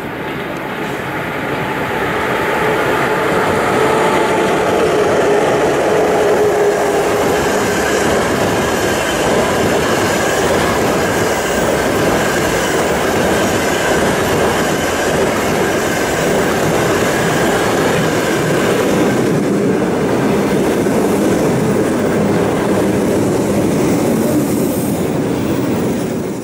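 ChS7 electric locomotive and its passenger coaches passing at speed: a steady rumble of steel wheels on the rails that builds over the first couple of seconds, then holds, with a few faint whining tones running through it.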